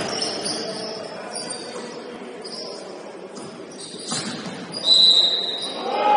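Basketball game on an indoor court: sneakers squeaking and a ball bouncing, with a sharp thud about four seconds in and a steady high-pitched squeal about five seconds in.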